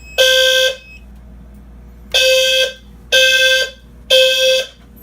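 Low-frequency fire alarm sounders going off in sync in the temporal-3 evacuation pattern: a low, buzzy tone in half-second blasts. The last blast of one group sounds, then a pause of about a second and a half, then three more blasts a second apart.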